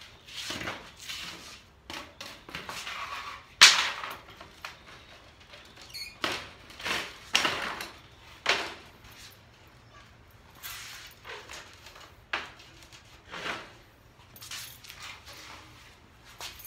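Wooden frames of a collapsible wire-mesh pen handled and fitted together: an irregular series of wood-on-wood knocks, clatters and scrapes, the sharpest knock about three and a half seconds in.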